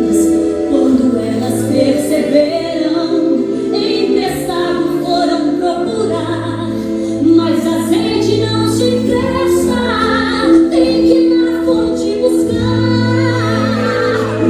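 Gospel song with a group of voices singing together over pandeiro strokes and jingles and sustained low accompaniment.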